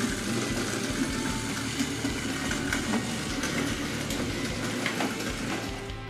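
Battery-powered Plarail toy train's small electric motor whirring steadily as the locomotive pulls its wagons around a wooden track, with scattered small clicks from the wheels and couplings.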